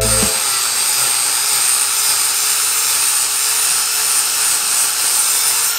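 Electric angle grinder with a sanding disc running steadily with a high whine, grinding out osmosis blisters in a fibreglass sailboat hull back to solid glass.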